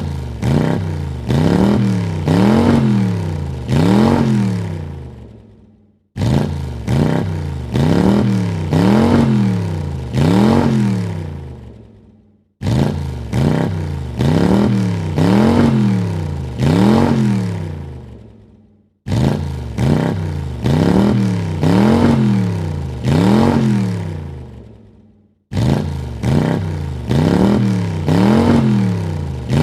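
Car engine revved in three quick blips, the pitch rising and falling each time, then dying away; the same short recording starts abruptly and repeats about every six seconds, five times over.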